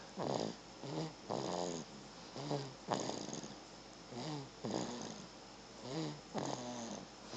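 Snoring in sleep: a string of short pitched snores, some gliding up or down in pitch, about one to two a second.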